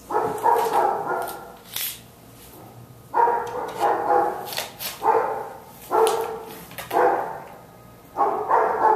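A dog barking over and over, about once a second.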